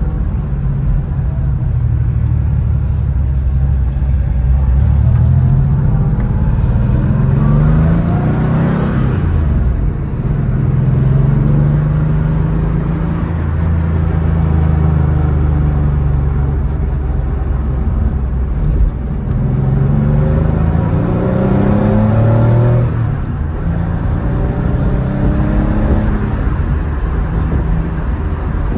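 Air-cooled 3.6-litre flat-six of a 1993 Porsche 964 Carrera 2 heard from inside the cabin under way, the revs climbing and dropping back several times as the car accelerates.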